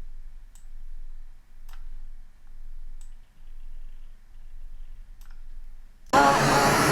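A few sharp, separate computer mouse clicks over a faint low room hum. Near the end a loud, steady rushing noise cuts in abruptly, as audio playback starts.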